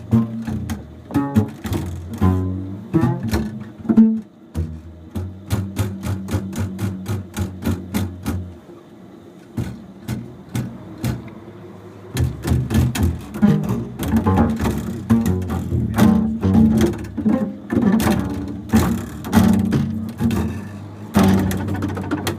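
Solo double bass played with many sharp, percussive attacks on the strings. A low note is held for about four seconds, then the playing thins out briefly before busy, dense low playing resumes.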